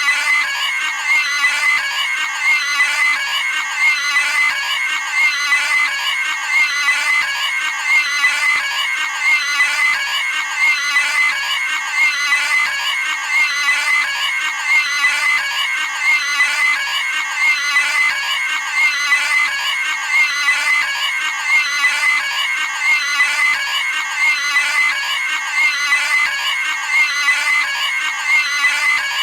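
Cartoon pig squealing: the same short, high-pitched scream repeated back to back in an unbroken loop.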